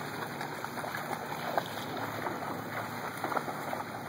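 A person and a Labrador retriever wading through shallow flood water, their legs and feet splashing over and over in a steady run of small splashes.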